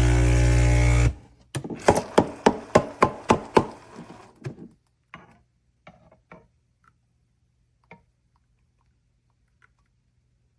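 Music stops about a second in, followed by a quick run of about a dozen knocks that fade away, then a few faint scattered clicks.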